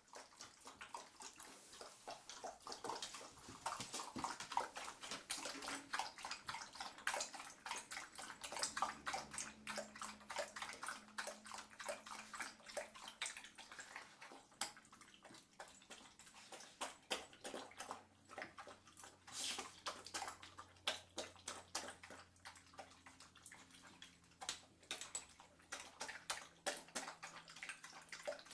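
Water splashing and sloshing: a dense, irregular run of small splashes and drips with no clear pauses.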